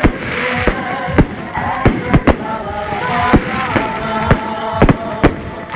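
Aerial fireworks bursting overhead: a string of sharp bangs, about two a second and irregularly spaced, over a continuous crackling hiss.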